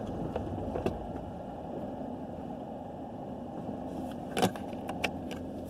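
Steady low rumble of a car heard from inside the cabin while it sits in traffic, with a few short knocks, the loudest about four and a half seconds in.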